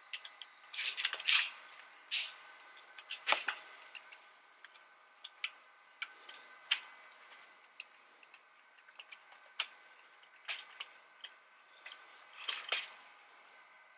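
Small metal parts of a broken sliding screen door lock clicking, tapping and scraping irregularly as the key barrel is worked out of the lock body, with brief louder scrapes about a second in, a little after three seconds, and near the end. A faint steady hum runs underneath.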